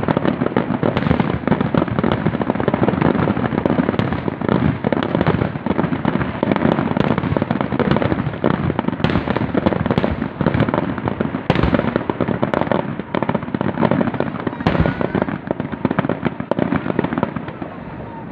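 Aerial fireworks going off in a dense barrage: many shells bursting in quick succession as a continuous rumble of booms and crackle, with a few sharper single bangs standing out.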